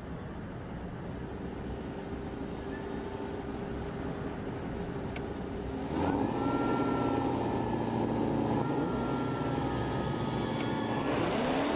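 Two supercharged V8 muscle cars, a Dodge Challenger SRT Demon and a Hennessey Exorcist Camaro ZL1, rumbling on the start line, their engines growing louder about halfway through. Near the end the engines rev hard in rising sweeps as the cars launch.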